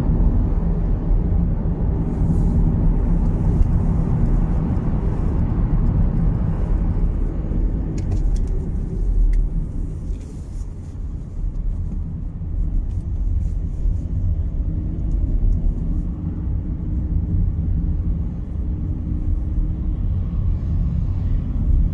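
Inside a moving Volkswagen Golf Mk7: steady low rumble of engine and tyres on the road, easing off briefly about ten seconds in.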